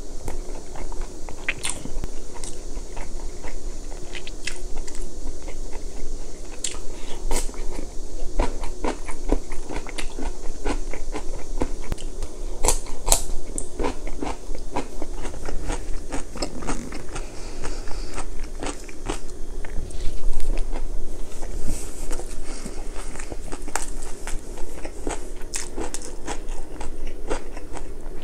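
A person chewing a mouthful of Korean home food close to the microphone: a continuous, irregular run of small wet clicks and chews.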